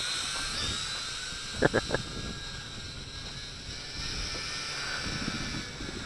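WLToys V686G quadcopter's small electric motors and propellers whining steadily in flight, heard from its onboard camera, the pitch wavering as it holds position. About a second and a half in, three quick short sounds stand out above the whine.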